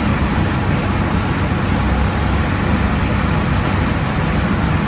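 Steady roar of airflow and engine noise inside a fighter jet's cockpit in high-altitude cruise, heaviest in the low end.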